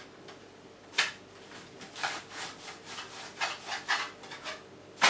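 Boilie dough being rolled back and forth by hand against a board: a quick series of rubbing strokes, about three a second.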